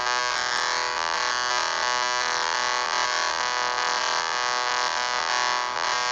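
Harsh, buzzy electronic emergency alert tone held steady: a synthesized EAS-style alarm signal.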